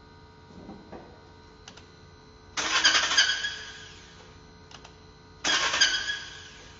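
Fiat Fire Evo engine cranked by its starter twice in short attempts, each starting suddenly and dying away after about a second, with the strange noise under diagnosis still present.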